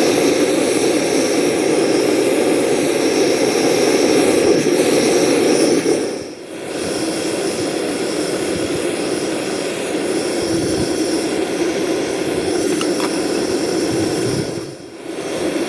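Fire-Maple FMS-116T gas canister stove burning on a medium flame inside an aluminium windscreen: a steady rushing hiss of the burner, dipping briefly twice, about 6 and 15 seconds in.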